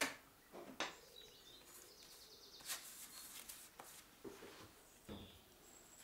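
Scattered small clicks, knocks and rustles of a painter handling a rag, brushes and paint on a cluttered studio table, the sharpest click right at the start, with faint high chirps in between.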